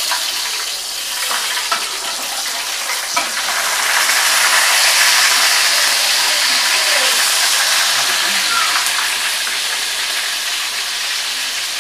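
Food frying in hot oil in a cooking pan, a steady sizzle.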